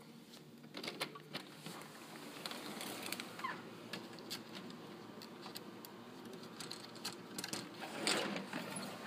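Hinged patio door being handled and swung open: scattered faint clicks and rustles, with a louder rustling burst near the end. A short rising chirp sounds about three and a half seconds in.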